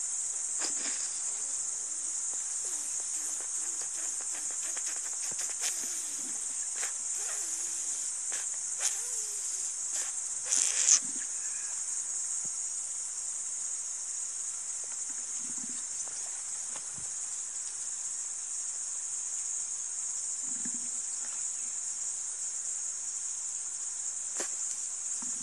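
A steady, high-pitched insect chorus, with a few faint rustles and knocks and a short louder noise about eleven seconds in.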